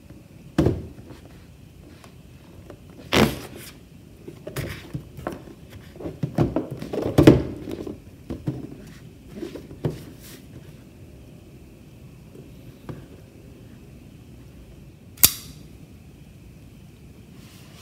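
A cardboard figure box with a plastic window being handled on a tabletop: knocks as it is set down and turned, and fingers rubbing and tapping the cardboard, with the loudest knock a few seconds in the middle. One sharp click follows a few seconds before the end.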